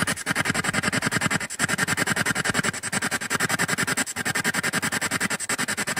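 Spirit box sweeping through radio stations: a rapid, evenly chopped stream of static and snatches of radio sound, with a short break about every second and a half.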